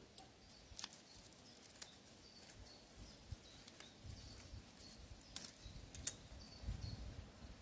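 Quiet outdoor ambience with a few faint sharp clicks of small items being handled, and faint short high chirps repeating in the background.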